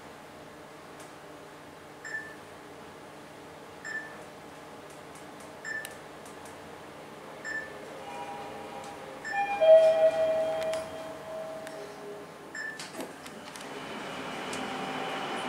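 Mitsubishi traction elevator car riding up: a short electronic pip sounds about every two seconds as it passes each floor, then its arrival chime rings several tones about eight to ten seconds in. Near the end a few clicks come and the car door slides open, letting in louder ambient noise.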